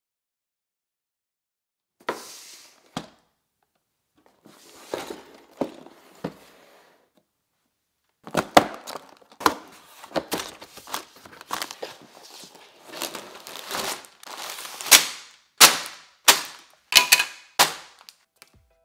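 A Lego set's cardboard box being opened by hand: a few sharp tears and snaps of the tabs and flaps, then, from about a third of the way in, a dense run of crinkling plastic parts bags with sharp clacks as they are handled and tipped out onto the table.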